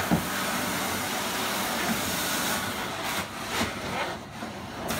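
Hot-water carpet extraction wand hissing steadily as it is worked over the carpet, with the suction and spray hiss dropping away briefly twice near the end.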